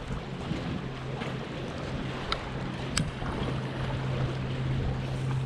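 Wind rushing over the microphone above choppy water at a seawall, with a steady low hum underneath and two short sharp clicks a little past the middle.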